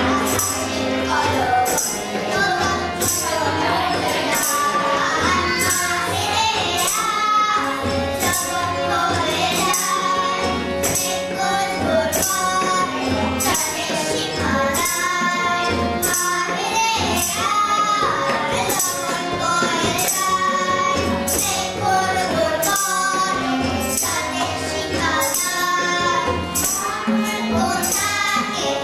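A woman and two girls sing a Bengali song together, accompanied by a harmonium and tabla. A jingling hand percussion keeps the beat with a sharp stroke about every three-quarters of a second.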